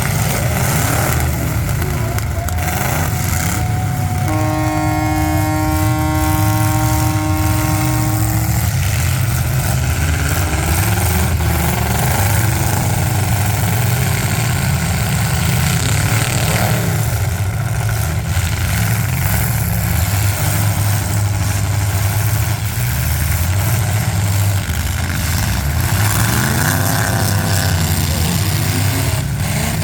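Demolition derby car engines running and revving throughout. A steady horn blast of about four seconds starts about four seconds in.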